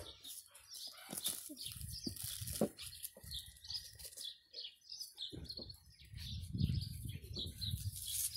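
Small birds chirping in quick, repeated short high notes, over low rustling and rumbling noise on the microphone.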